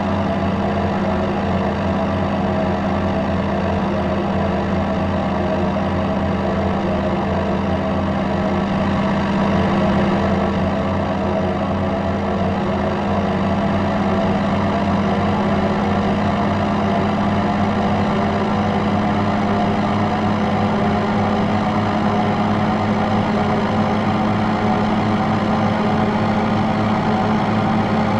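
Steady drone of aircraft propellers and their engines: an even, unchanging hum with a strong low tone and a haze of noise above it.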